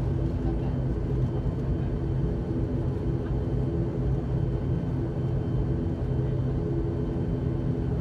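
ATR 72-600's Pratt & Whitney PW127M turboprop engine and propeller running at taxi power, heard from inside the cabin. It is a steady low drone with several hum tones that swell and fade.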